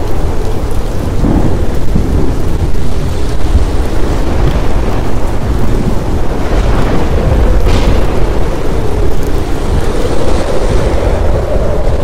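Thunderstorm: heavy rain falling with continuous deep rolling thunder, a steady tone slowly wavering underneath, and a brighter surge of the storm around the middle.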